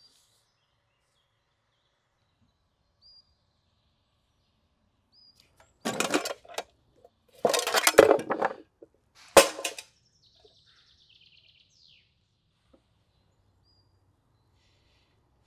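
Three loud bouts of rustling handling noise, the last starting with a sharp knock, from something being handled close by. Faint bird chirps come before them, and a short bird twitter and a falling whistle come after.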